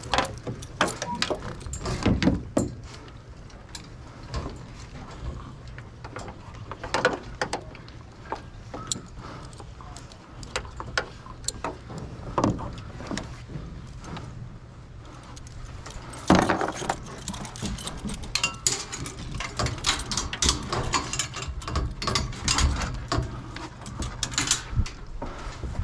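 Metal chain and fittings clinking and rattling with scattered knocks as a dead buck is chained to a pickup's steel dog box, over a steady low hum.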